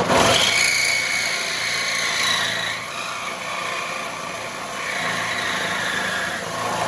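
Reciprocating saw (Sawzall) cutting through the bottom of a steel Jeep frame rail. It runs steadily, with a high metallic whine that wanders in pitch as the blade works through the steel.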